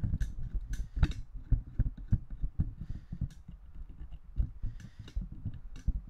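Irregular clicks and low thumps from a Blue The Pop pop filter's clamp and metal gooseneck being screwed on and handled close to the microphone.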